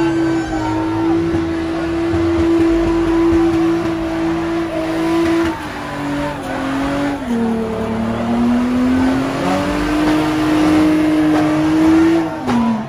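A car doing a burnout, its engine held at high revs over the noise of spinning tyres. The note holds steady for about five seconds, then dips and climbs again as the throttle is worked, and falls away just before the end.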